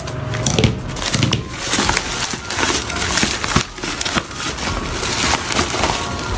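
Product packaging being opened by hand: irregular crinkling and rustling with scrapes and small knocks.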